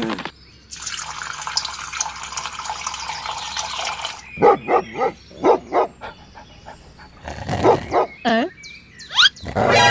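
A steady hiss for about three and a half seconds, then a dog barking: four quick barks, a pause, and two more, followed by two quick rising tones near the end.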